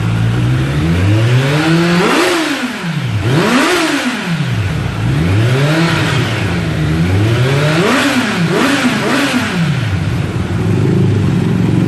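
Kawasaki Z900's inline-four engine blipped from idle through an SC Project S1 slip-on exhaust, about six quick revs that each rise and fall back, the last three in close succession, then settling to idle. The stock header and catalytic converter are still fitted, which the owner says holds the exhaust note back.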